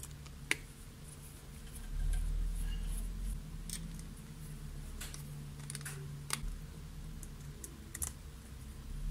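A few light clicks and taps of a screwdriver and fingers on the metal frame of a Tascam 464 Portastudio's cassette transport as a screw is driven back in, over low handling rumble that swells about two seconds in.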